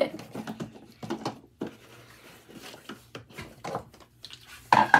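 Hands rubbing a skincare cream between the palms, a faint soft rustle, broken by a few short louder sounds, the loudest near the end.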